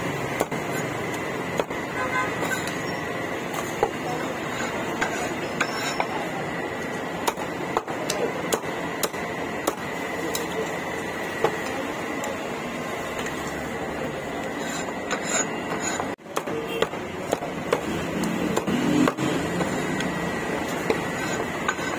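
Street-food stall kitchen clatter over a steady background hum: frequent sharp knocks and clicks of utensils and dishes, with a brief drop-out about sixteen seconds in.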